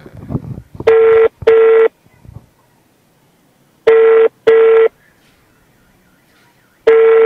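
Mobile phone ringback tone on speakerphone: pairs of short beeps in a 'ring-ring' pattern, repeating about every three seconds, three times. It is the sign that the called phone is ringing and the call has not yet been answered.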